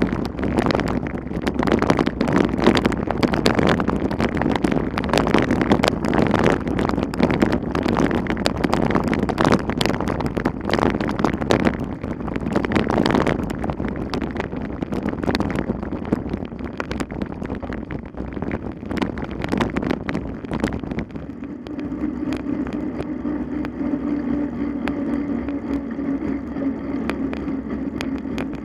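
Wind buffeting the microphone, with frequent knocks and rattles; about 21 seconds in it settles into a steadier low hum with a faint whine.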